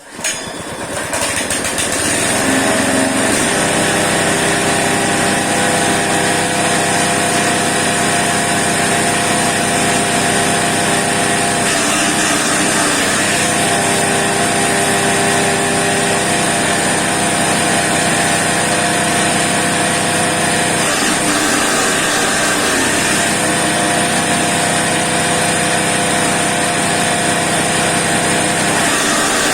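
Grass chopper machine starting up, coming up to speed over about two seconds, then running steadily at full speed with a steady high whine.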